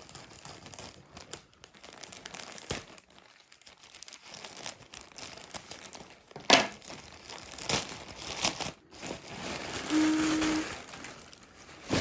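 Parcel packaging being crinkled and torn open by hand, with scattered rustles, a sharp snap about six and a half seconds in, and a longer tearing rasp near the end.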